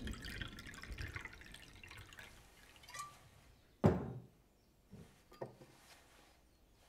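Wine being poured into a stemmed glass, then a sharp knock about four seconds in, followed by two lighter knocks.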